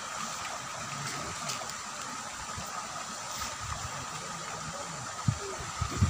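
Pond water splashing and churning steadily as a school of common carp and Nile tilapia snatch feed at the surface, with faint small splashes throughout. Two or three low thumps come near the end.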